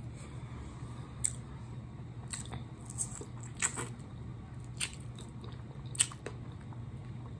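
Close mouth sounds of eating hot-sauce-covered chicken wings: biting and chewing meat off the bone, punctuated by about six sharp, wet smacks.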